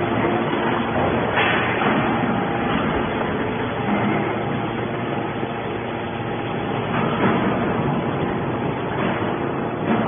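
Hydraulic scrap metal baler running with a steady drone from its motor and hydraulic pump as the ram pushes a compressed bale of metal turnings out of the press chamber.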